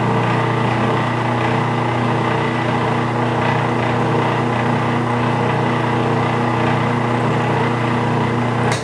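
Metal lathe running at its slowest spindle speed, a steady motor and gear hum, while a 5/16-24 spiral point tap in a tailstock drill chuck feeds itself into a blind hole. Near the end the lathe is switched off and the hum dies away.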